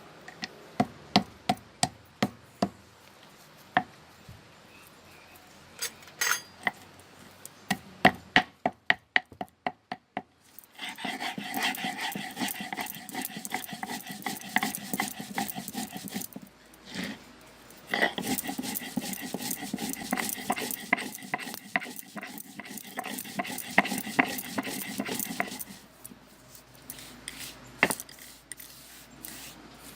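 Hand grinding on a sil-batta, a stone roller worked over a flat stone slab. It starts with a series of sharp separate knocks. About a third of the way in it turns to steady, rapid back-and-forth grinding strokes, with a short break in the middle.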